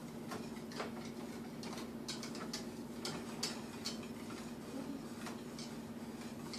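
A utensil stirring sauce in a small metal saucepan, clicking and scraping against the pan at an irregular pace, over a steady low hum.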